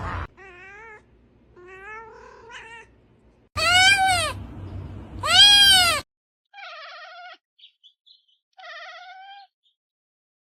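Cats meowing, about six separate meows. A couple of fainter wavering meows come first, then two loud, long meows that rise and fall in pitch in the middle, then fainter wavering meows again.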